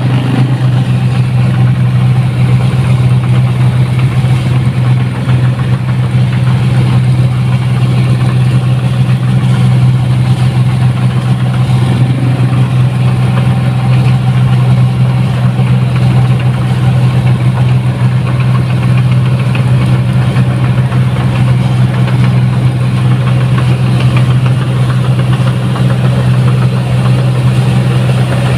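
Rice combine harvester's diesel engine running at a steady, unbroken drone as the machine travels slowly along a road.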